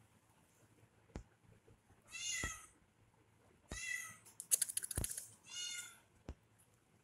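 Young kitten meowing three times in high-pitched calls: about two seconds in, about four seconds in and near six seconds. A quick run of light clicks and a soft thump come between the second and third meows.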